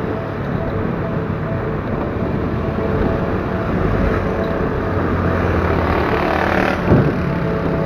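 Motorcycle riding on a paved road: steady engine hum mixed with wind and road noise. A single sharp knock comes about seven seconds in.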